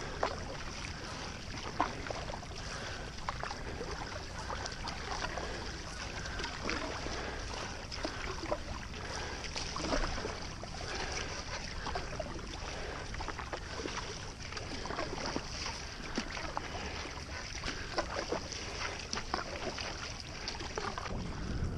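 Stand-up paddle blade dipping and pulling through calm water in repeated strokes, with small splashes and water trickling along the board.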